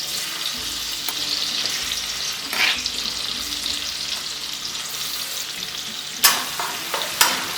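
Smashed garlic and red chillies sizzling steadily in hot oil in a kadhai. A few sharp knocks against the pan come once near the middle and twice near the end.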